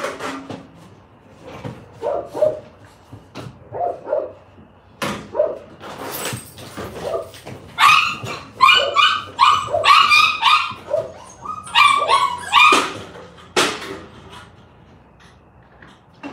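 A dog barking and yipping in quick runs of short, sharp barks, busiest from about six to thirteen seconds in. Two sharp knocks are heard among them.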